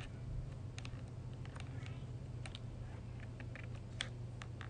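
Irregular light clicks and taps, about a dozen, the sharpest about four seconds in, over a steady low hum.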